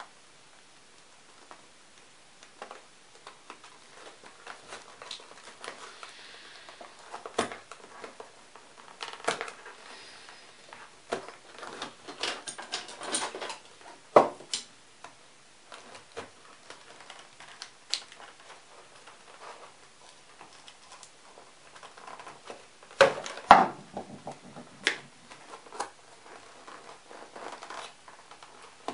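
Scattered clicks, taps and rustles of small parts and packaging being handled on a tabletop, with a few sharper knocks about halfway through and a louder cluster near the end.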